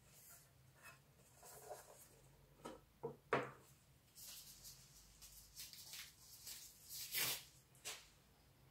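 Faint handling noises of a small aluminium router case: it is turned over by hand and set down on a table with a sharp knock about three seconds in, followed by light rubbing and taps.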